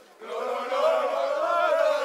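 A group of young people chanting together in unison, many voices at once, picking up again after a brief gap at the very start.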